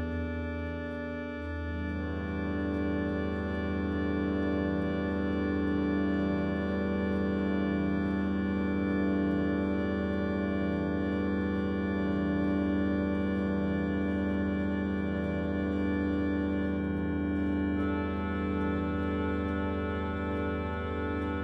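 Harmonium holding sustained organ chords in a slow drone-like texture. A new chord comes in about two seconds in, and near the end higher notes join, some wavering in a slow pulse.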